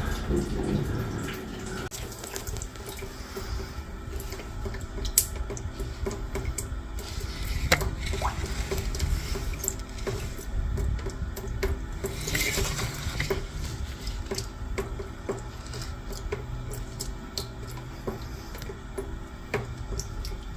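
Water running and splashing through a freshly patched drain pipe, a flow test of the new patch liner over a crack that had been leaking sewage. It goes on steadily with a low hum underneath and occasional small knocks.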